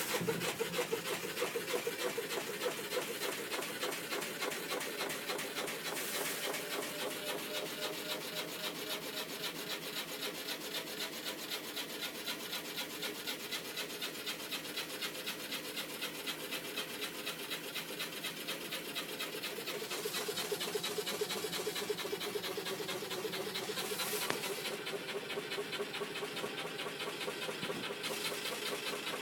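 Hitachi DV-1200 running with a rapid, even pulsing noise over a wavering tone, which the owner suspects is an abnormal noise.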